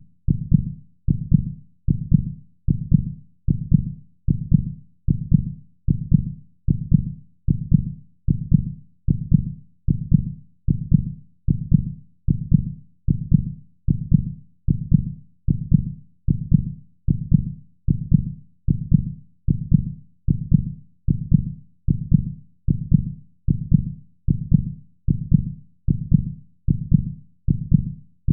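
Heartbeat sound: low, evenly spaced beats repeating at a steady pace slightly faster than one a second.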